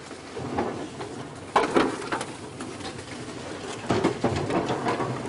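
Doves cooing in the bush, with a few sharp knocks about a second and a half in and again around four seconds.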